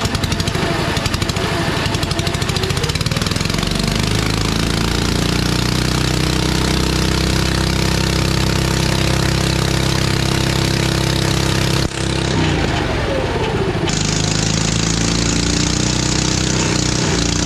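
Small V-twin engine of an amphibious ATV running hard and unmuffled, driving its propeller in a water-filled tank, with water churning and splashing. The revs dip briefly and come back about twelve seconds in.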